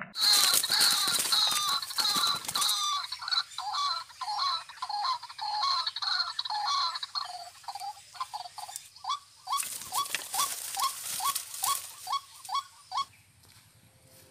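Recorded calls of the tikling, a rail, played through a small phone speaker as a lure. A long run of short, repeated calls with upward-sliding notes, harsh and rasping at the start and again near the end. Late on they come about two a second, then stop about a second before the end.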